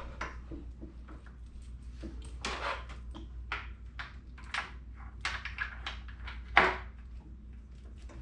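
Irregular clicks, taps and knocks of metal car parts being handled and fitted, with one louder knock about six and a half seconds in, over a steady low hum.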